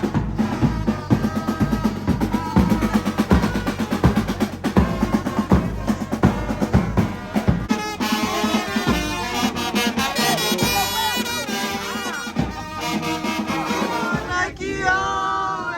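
Background music with a fast drum beat, with some voices over it.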